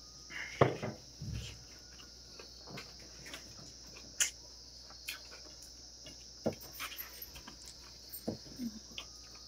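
Hand-eating from a steel plate: scattered taps and clicks as fingers mix rice against the metal, with chewing sounds, over a steady high-pitched hiss. The sharpest click comes about half a second in.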